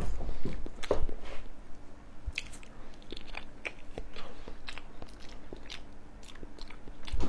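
Close-up eating sounds of a person biting and chewing a peeled century egg: many short wet mouth clicks and smacks, loudest in the first second or so.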